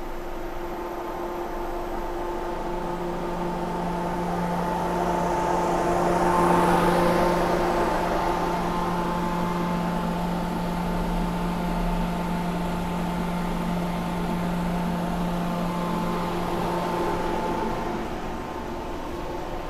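Mori Seiki NV-5000 CNC vertical machining center powered up and standing idle, giving a steady machine hum with several steady tones. It swells louder for a few seconds about a third of the way in and eases off slightly near the end.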